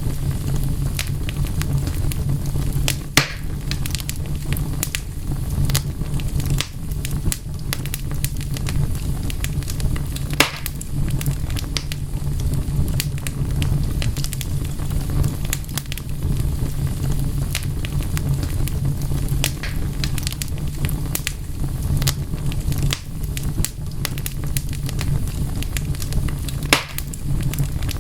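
Wood fire burning with a steady low rumble and frequent sharp crackles, a few louder pops standing out, about three seconds in, near the middle, and near the end.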